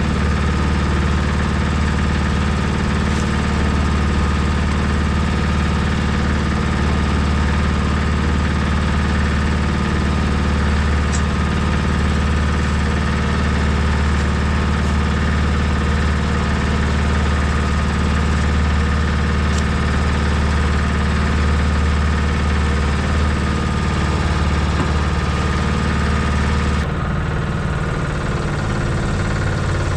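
Engine-driven cement mixer running steadily while mortar is mixed. Near the end the sound changes abruptly, going a little quieter and duller.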